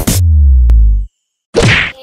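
End of a logo-intro sound effect: the electronic music stops on a deep, loud bass hit that drops in pitch and cuts off after about a second. After a brief gap, a short whoosh marks the transition.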